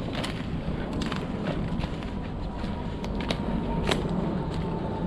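Footsteps crunching through dead leaves and snapping twigs on a woodland floor, sharp irregular cracks over a steady low rumble of wind on the microphone.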